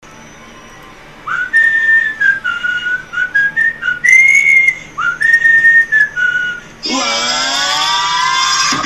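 A whistled melody of several short held notes, each with a slight upward slide into the note. About seven sec in, a rising electronic sweep cuts in and dense music takes over.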